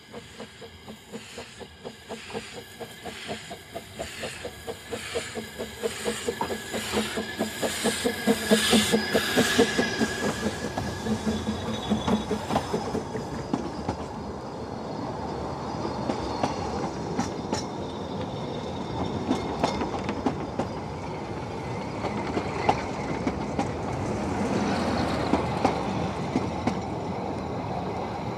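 Narrow-gauge steam train approaching and passing close by: the locomotive's regular beats grow louder over the first eight seconds and are loudest around nine seconds in, then the carriages roll past with a steady rumble and wheels clicking over the rail joints.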